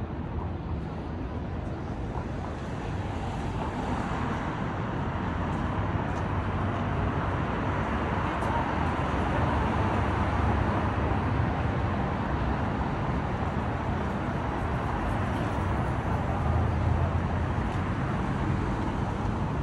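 Steady city road traffic: the rumble of passing cars' engines and tyres, growing louder a few seconds in and staying up.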